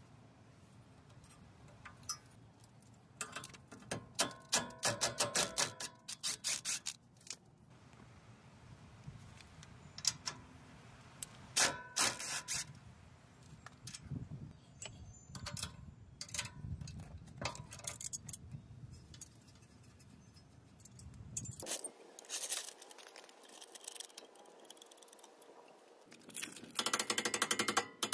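Hand tools working on a pickup truck's front suspension: metal clinks and several bursts of rapid, ratchet-like clicking, the densest burst near the end.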